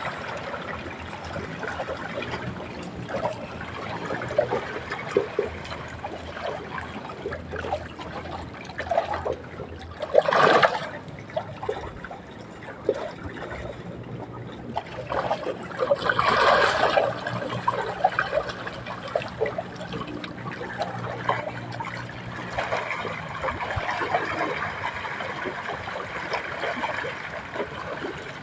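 Water trickling and moving, with two louder splashes, about ten seconds in and around sixteen seconds in.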